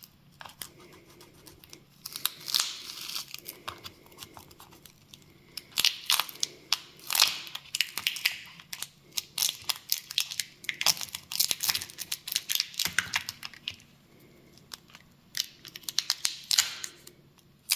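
Sticky battery adhesive crackling and tearing as the old battery is pried loose from a Nintendo Switch, in irregular clusters of sharp crackles with short pauses between.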